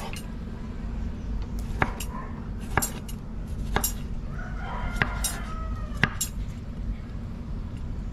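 Kitchen knife striking a wooden cutting board while a tomato is diced, sharp taps about once a second. A rooster crows in the background about halfway through.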